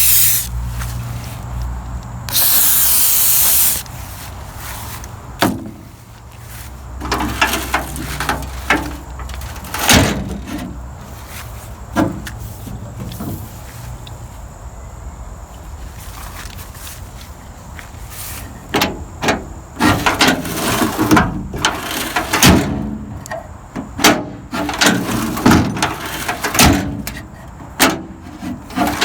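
A short burst of aerosol lubricant spray, then a run of clunks and clicks as the 1985 Toyota pickup's tailgate is shut and its newly replaced handle lock and latch are worked, coming thick and fast in the last ten seconds.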